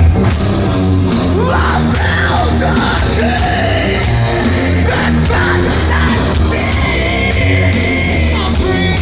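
Live heavy rock band playing loud, with distorted guitars, drums and yelled vocals, the band crashing back in after a brief drop right at the start.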